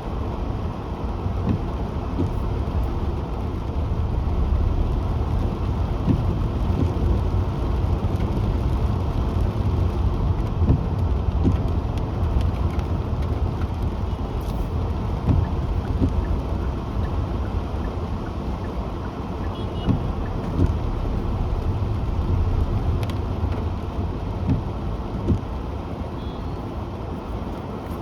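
Car driving on wet roads in the rain: a steady low rumble of road and tyre noise with occasional soft thumps, and a couple of faint short beeps later on.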